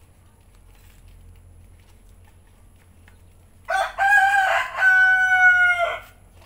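A rooster crowing once, loudly, a little over halfway through: a short first note, then a longer call that is held and falls slightly at the end, about two seconds in all.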